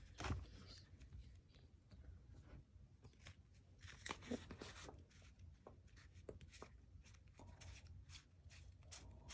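Faint flicking and rustling of a stack of Pokémon trading cards being thumbed through and fanned out in the hands, with scattered soft clicks and two slightly louder snaps, near the start and about four seconds in.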